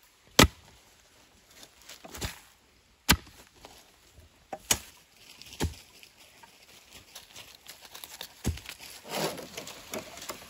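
Clamshell post-hole digger driven into forest soil, giving about six sharp knocks at irregular intervals, the loudest about half a second in.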